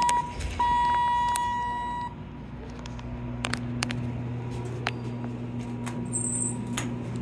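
Elevator hall lantern chime giving two electronic beeps, a short one and then one held for about a second and a half, the double tone that signals a car going down. A steady low hum starts about three seconds in, with scattered light clicks.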